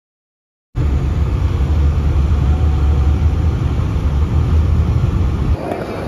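Bus in motion: a loud, steady low rumble of engine and road noise that starts suddenly and eases a little shortly before the end.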